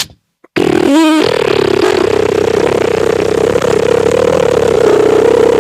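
A loud motorcycle-engine revving sound held on one steady pitch, with a brief warble just after it starts. It begins suddenly about half a second in and runs on without a break.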